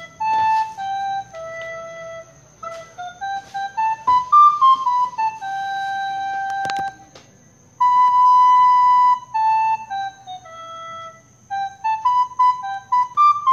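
Solo flute playing a slow melody one note at a time, stepping up and down, with a short pause about halfway through.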